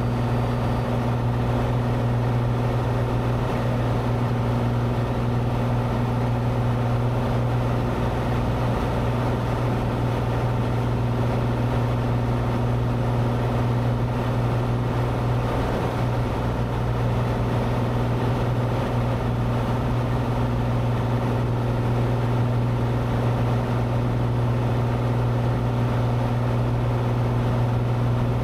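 Cessna 182's engine and propeller running steadily in cruise flight, a constant drone heard from inside the cabin.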